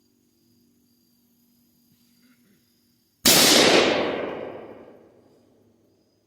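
Tannerite charge detonating when hit by a rifle shot: one sudden loud blast about three seconds in, its rumble dying away over the next two seconds.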